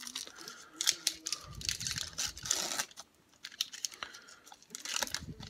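Rustling and crinkling as trading cards are handled and slid against one another, with scattered light clicks.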